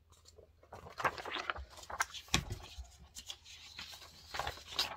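Paper cross-stitch pattern charts and their packets being handled and shuffled: irregular rustling with scattered light taps and clicks, the loudest tap about two and a half seconds in.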